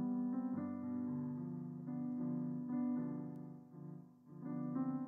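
A hymn played on piano in slow chords, with a new chord about every second.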